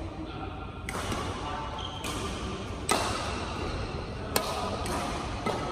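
Badminton rackets striking a shuttlecock back and forth in a rally: a string of sharp hits, about one a second.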